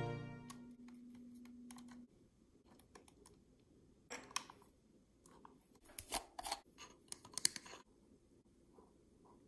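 Background music fading out, then faint scattered clicks and light taps of small objects being handled: a short cluster about four seconds in and another, busier one a couple of seconds later.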